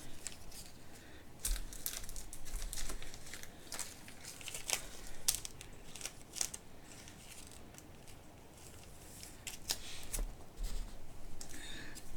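Trading card packs being torn open and their wrappers crinkled while cards are handled: a run of short, crackly rustles, quieter for a couple of seconds in the middle.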